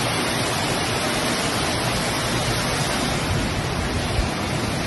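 Steady rush of floodwater and mud pouring through a wall broken open by a landslide.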